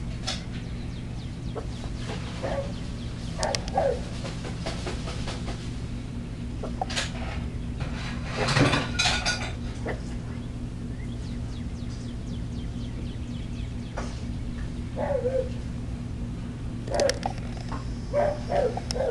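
Chihuahua giving short, scattered barks every few seconds, with a louder cluster about halfway through.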